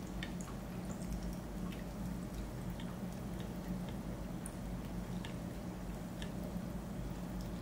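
Metal spoon stirring stock in a plastic measuring cup, with scattered faint light ticks of the spoon against the cup, over a steady low hum.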